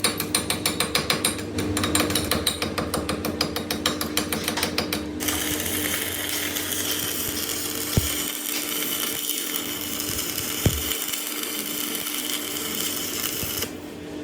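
Workshop machinery running with a steady hum and rhythmic clicking, about five clicks a second. About five seconds in, the clicking gives way to the steady hissing crackle of an electric welding arc on the shaft joint. The crackle runs until it cuts off shortly before the end, with two sharp knocks in the middle.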